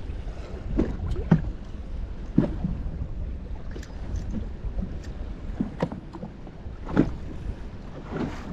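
Steady low wind rumble on the microphone in a small fishing boat, with about half a dozen short knocks or slaps scattered through, the sharpest just over a second in and about seven seconds in.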